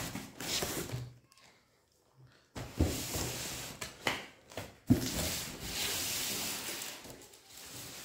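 Cardboard cartons being handled: a brown inner box scraping and sliding against the outer box as it is lifted out, with a few dull knocks as it is set down on the table and a brief pause about a second in.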